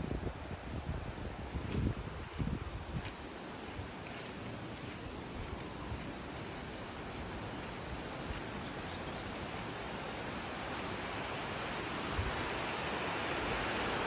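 Steady high-pitched insect trill, typical of a cricket, that cuts off suddenly about eight seconds in, over a steady rushing background noise that grows slightly louder toward the end.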